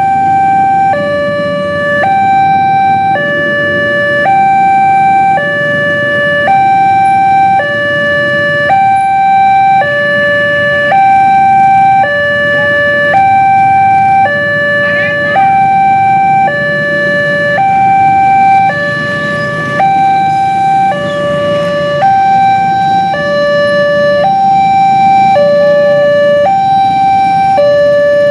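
Standard Indonesian railway level-crossing alarm sounding at a somewhat slow tempo: an electronic two-tone hi-lo signal switching between a higher and a lower pitch about once a second, warning that a train is approaching. Road traffic rumbles underneath.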